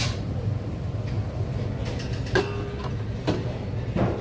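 Restaurant kitchen noise: a steady low rumble with a few sharp clinks of utensils, one a little past two seconds in and more near the end.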